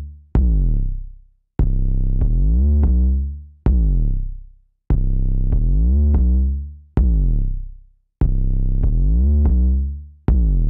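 Electronic background music: long, deep synth bass notes, each starting with a sharp hit and then fading away, separated by short gaps.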